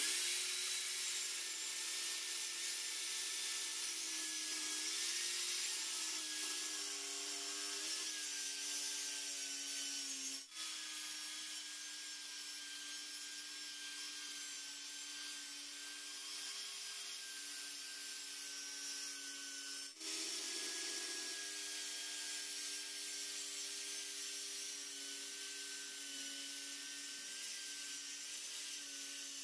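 Corded circular saw running and cutting through wood: a steady motor whine over the hiss of the blade, its pitch sagging slightly at times as the blade bites. The sound breaks off for an instant twice.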